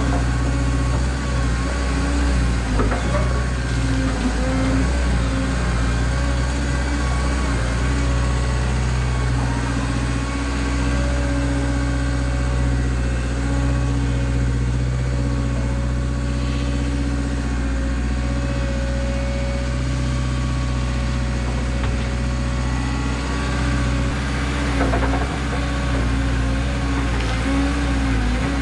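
Diesel engine of a Caterpillar 317 excavator running steadily while it works, its pitch holding with small dips and rises.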